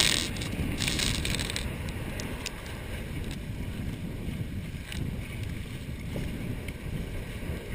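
Water rushing along the hull of a Hobie 18 catamaran sailing at speed, with wind buffeting the microphone. Two louder bursts of hissing spray come in the first second and a half.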